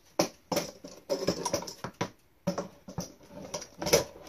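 Irregular knocks and clatter of wooden press boards being handled and set against a bar clamp, pressing heated kydex over foam.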